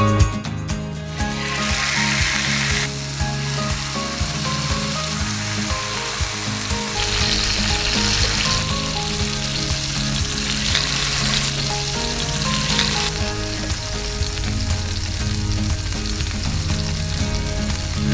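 Marinated chicken sizzling in hot oil on a ribbed grill pan, the hiss swelling and easing several times, loudest about two, eight and eleven seconds in. Soft background music plays underneath.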